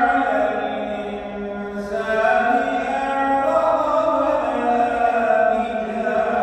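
A man's solo voice chanting a long, ornamented Islamic recitation, the pitch sliding through drawn-out melodic turns, with a short breath about two seconds in.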